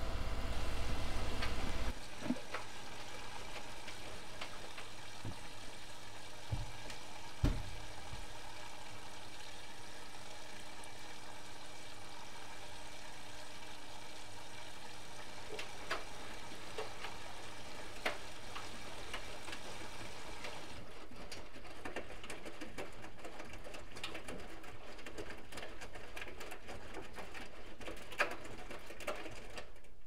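Bosch Exclusiv Maxx Comfort WFR160A front-loading washing machine at the end of a spin: its low hum cuts out about two seconds in, and the drum slows and turns the laundry over. Scattered soft knocks and clicks come from the drum, the loudest about seven seconds in.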